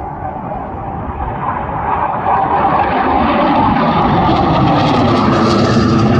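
Jet roar of a Panavia Tornado's twin RB199 turbofan engines, growing steadily louder and brighter as the aircraft approaches.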